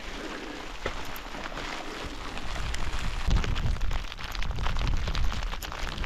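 Hail and rain pattering as a dense run of small ticks, with strong wind buffeting the microphone in low gusts from about halfway through.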